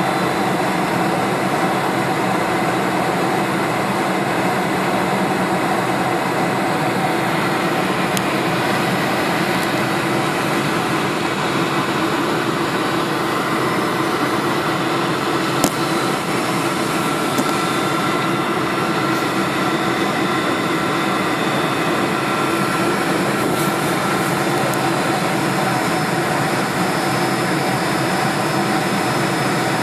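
Steady cabin noise of a KLM Boeing 747 on approach, heard from a window seat over the wing: jet engines running and air rushing past the fuselage. A faint whine comes in around the middle, and there is a single short click just past halfway.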